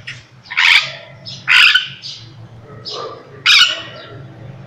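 Parrot squawking: three loud, harsh squawks with shorter, softer calls in between.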